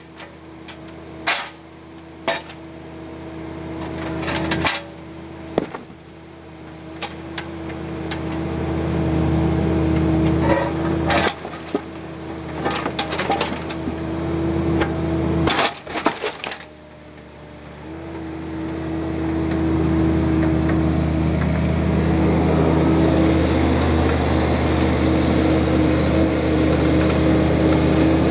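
Bobcat mini excavator's diesel engine running with a steady hydraulic whine, growing louder as the arm works under load. Through the first half the steel bucket knocks and scrapes against rock and the metal truck bed several times, with a cluster of clatters about a quarter and half of the way in; after that the engine holds steady at its louder level.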